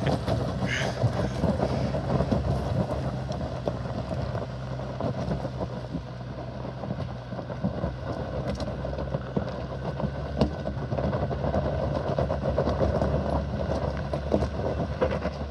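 Toyota Tacoma pickup's engine running steadily at low revs while the truck works its way over a steep off-road hill. Scattered sharp clicks and crunches of tyres on rock sound throughout.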